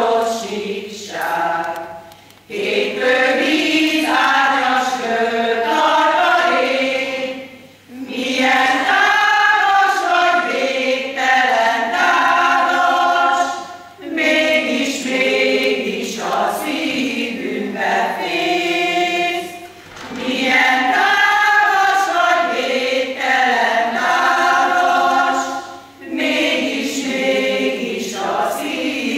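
Women's choir singing in sustained phrases about six seconds long, with short breathing gaps between them.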